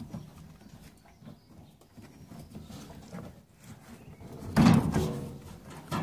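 Light handling noises as the tumble dryer's drive belt and plastic idler pulley are worked into place, with one loud clunk about four and a half seconds in and a sharp knock at the very end.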